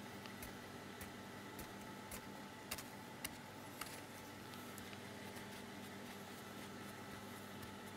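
Quiet kitchen room tone: a steady hum of kitchen equipment, with faint scattered clicks and a few sharper ticks near the middle.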